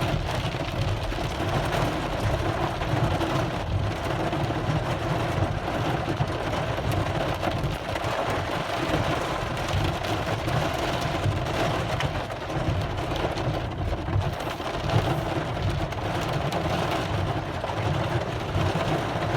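Very heavy rain falling steadily on a car, heard from inside the cabin, over the low hum of the car running.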